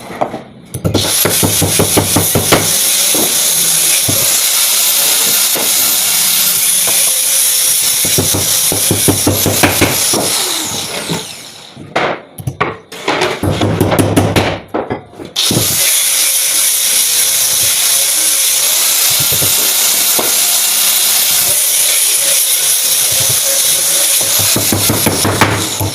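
A handheld power tool running steadily under load with a high whine, winding down about eleven seconds in. Several sharp knocks follow before it starts again and runs to near the end.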